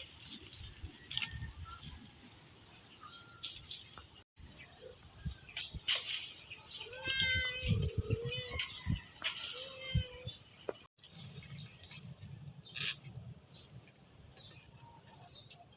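Rural outdoor ambience: scattered bird chirps and calls over a steady high-pitched whine. The sound cuts out abruptly twice, about four seconds in and again near eleven seconds.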